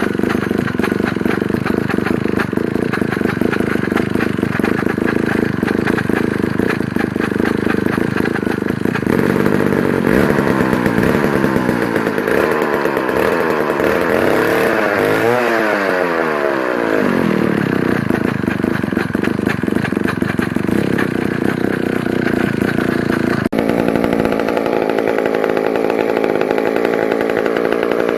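McCulloch two-stroke chainsaw running steadily, its engine pitch swinging up and down for several seconds around the middle. About three-quarters of the way through, the sound changes abruptly to a somewhat different engine note.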